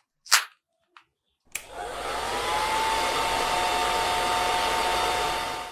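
A short whoosh, then about a second and a half in a hair dryer switches on: its motor whine climbs briefly, then it blows steadily until it cuts off at the end.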